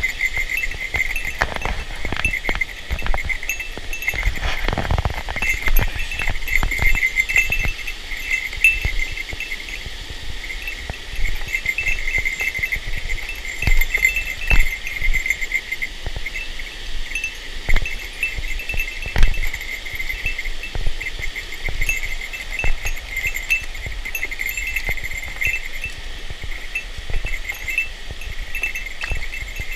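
A steady, pulsing high-pitched chorus of calling animals, insect-like, over the rush of a mountain stream, with scattered knocks and bumps throughout.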